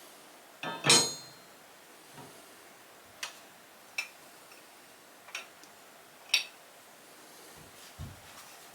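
Small metal parts being handled: a loud clink with a brief metallic ring about a second in, then several light clicks about a second apart, and a dull thump near the end.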